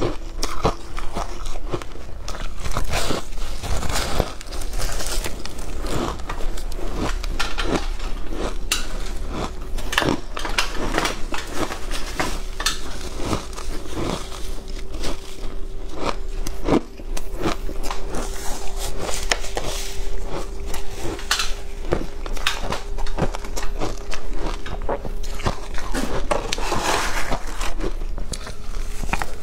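Shaved ice coated in matcha powder being bitten and chewed close to a lapel microphone: a steady run of sharp, crisp crunches.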